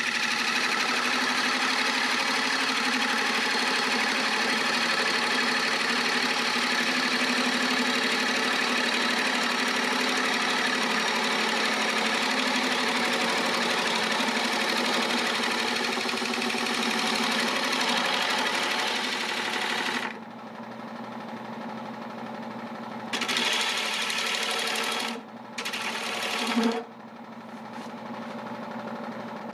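Turning gouge cutting the outside of a large vase blank spinning on a wood lathe: a steady rush of shearing wood over the hum of the lathe. The cut stops about twenty seconds in, then comes back in two short passes near the end.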